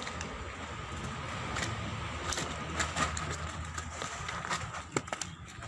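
Steady outdoor background noise with a faint hum, broken by scattered sharp clicks and taps.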